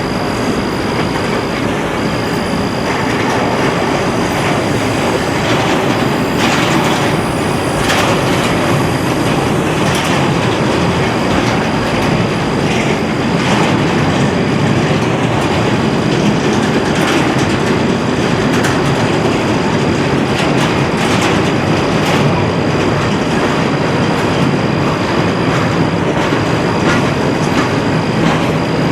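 Norfolk Southern intermodal stack train's cars rolling past: a steady, loud rumble and clatter of steel wheels on rail. A thin high whine holds over it and drops out briefly now and then.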